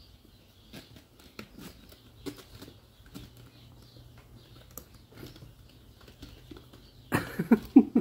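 Kittens scuffling at the base of a carpeted scratching post: soft scrabbles and light taps of paws and claws. About seven seconds in, a loud bout of scratching and scrabbling starts as they climb the post, with a person's voice breaking in over it.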